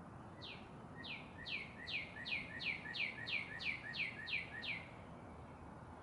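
Northern cardinal singing a run of about eleven falling whistled notes, a little over two a second, which stops about five seconds in, over a steady background hiss.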